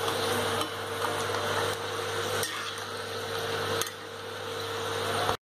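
Thin raw cassava slices sizzling as they deep-fry in hot oil in an iron wok, a steady dense hiss over a low hum, with a few sharp clicks of a metal ladle against the pan. The sound cuts off abruptly near the end.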